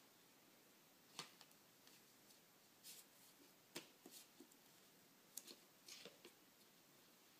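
Faint, scattered taps, flicks and rustles as a baby's hands turn and pat the stiff cardboard pages of a board book.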